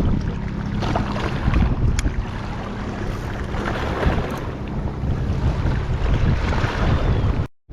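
Wind buffeting the microphone with a steady low rumble, over water lapping at the rocks. The sound cuts out completely for a moment near the end.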